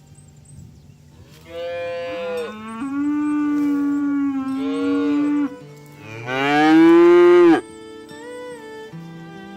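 Oxen mooing: a long, drawn-out moo, then a louder moo about six seconds in that rises in pitch, with faint background music underneath.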